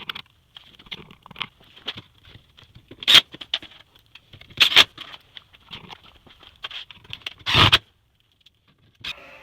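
Workshop clatter of scrap-wood cabinet pieces being handled: light taps and rattles, with three sharp knocks, the last about two thirds of the way in.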